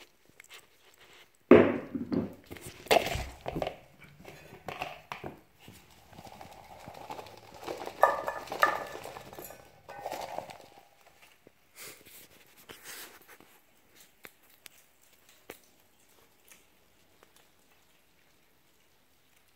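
Knocks, clatter and rustling from handling a plastic cup of superworms, carrot slices and strawberry pieces and tipping the food into a stainless steel bowl, loudest in the first few seconds, then thinning out to a few small clicks.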